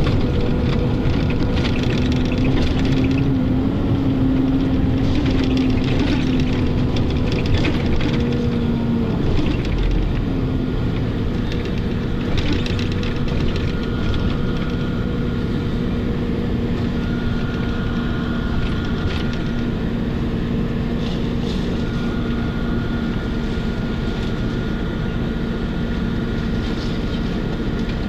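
Steady running hum and rumble of a moving road vehicle heard from inside it, with light rattling at times; the hum's pitch drops slightly about nine seconds in.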